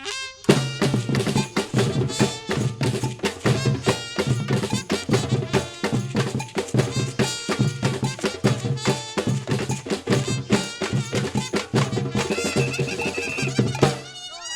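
Brazilian-style percussion ensemble (batucada) playing a fast groove of deep drums and cowbell-like strikes. A high steady note is held near the end, and the band stops abruptly shortly after.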